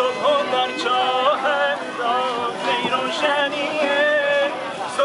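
Live Persian traditional music: a male voice singing a wavering, ornamented melody with a plucked long-necked lute.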